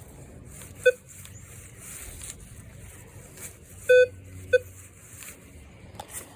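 Minelab Vanquish 440 metal detector sounding three short low beeps, the middle one a little longer, as its coil passes over a steel wheat penny.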